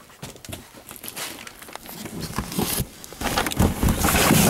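Bundled radio control cables being handled and pulled from a box: rustling and light clicking of cable jackets and connectors, with scattered clicks at first and denser, louder rustling from about three seconds in.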